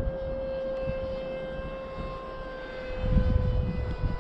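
Electric RC plane's motor and propeller whining at a steady pitch overhead, the note sagging slightly lower over the seconds. Wind buffets the microphone about three seconds in.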